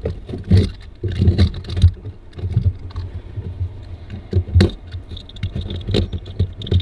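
A cut-out piece of fibreglass hull with carpet lining being worked loose and pulled out of a new porthole opening: irregular knocks, taps and scrapes as it is wiggled against the edges of the hole.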